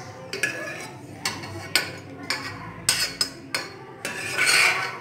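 A steel spoon clinking and scraping on metal cookware as ghee-fried cashews and raisins are scooped out of an aluminium pressure cooker into a small steel bowl: a string of sharp clinks about half a second apart, then a longer scrape near the end.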